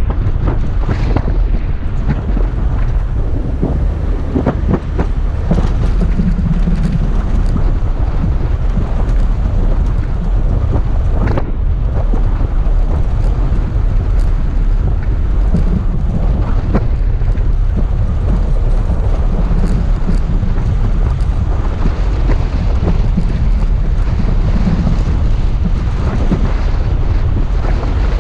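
Toyota FJ Cruiser driving through deep sand: a steady, loud low rumble of engine and tyres, with wind buffeting the microphone and scattered clicks and knocks throughout.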